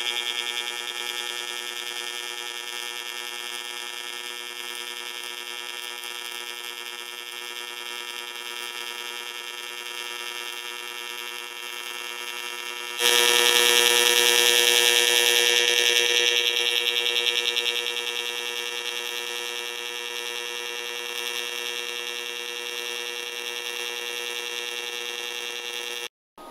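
AC TIG arc on aluminium from a Miller Dynasty welder, pulsing at 10 pulses per second: a steady electric buzz. It gets suddenly louder about halfway, then eases back, and it stops just before the end.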